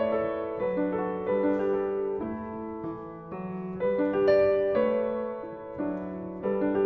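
Solo piano playing jazz: sustained chords struck in phrases that swell and fade in loudness.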